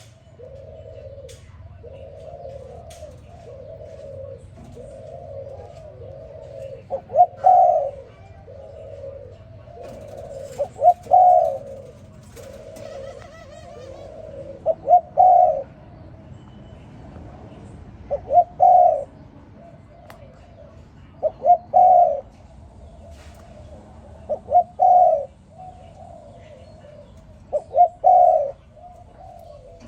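Spotted dove cooing: a louder phrase of a few quick notes ending in a longer coo, repeated about every three to four seconds, with softer cooing between the phrases.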